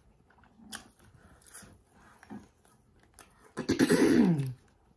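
Eating mouth sounds: a few soft smacks and clicks, then about three and a half seconds in a loud, raspy, breathy vocal exhale about a second long that falls in pitch.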